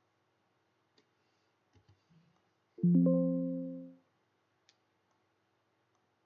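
Computer alert chime: a single pitched tone that sounds suddenly about three seconds in and fades within about a second, signalling an error when the code was run. A few faint clicks come before it.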